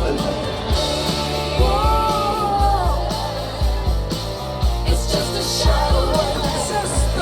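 Rock song from a TV episode's soundtrack: a singing voice over a steady drumbeat and guitar.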